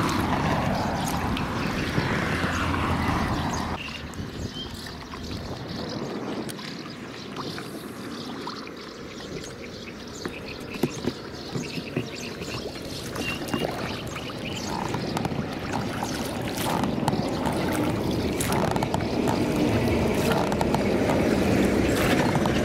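Water splashing and gurgling along the hull of an inflatable boat being rowed along a river, with a few scattered knocks in the middle.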